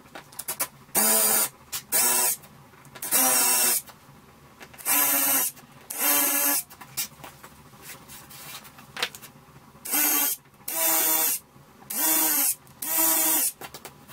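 Cordless drill running in about nine short runs of half a second or so, drilling small pilot holes into a white-faced wooden board.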